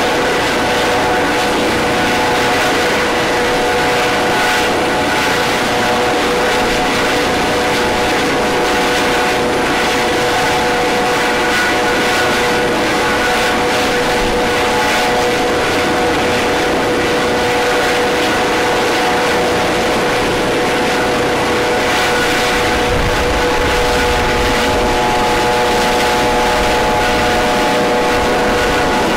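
Federal Police turbine helicopter with a ducted fenestron tail rotor running close by: a steady turbine whine with several fixed tones over the rush of the spinning rotors. More low rumble comes in during the last several seconds as it lifts off.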